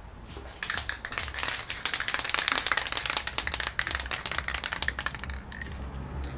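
Aerosol spray-paint can being shaken, its mixing ball rattling in a fast run of clacks for about five seconds, the usual mixing before a coat of paint.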